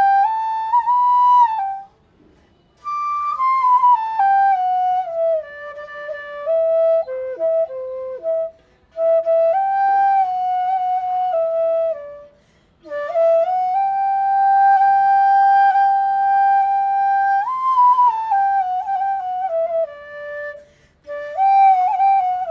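Background music: a slow solo flute melody played in phrases, with short pauses between them and one long held note near the middle.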